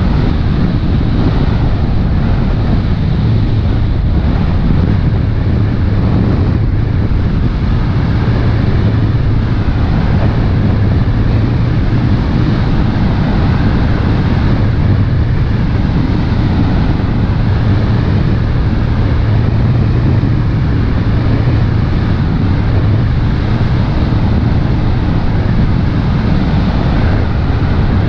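Motor launch under way across open water: a steady, low engine drone mixed with wind rushing over the microphone.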